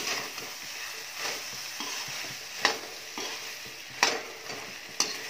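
Metal spatula stirring and scraping a thick chickpea, potato and radish mixture frying in a metal kadai, over a steady sizzle, with a few sharp clinks of the spatula against the pan. The masala is being fried (bhuna).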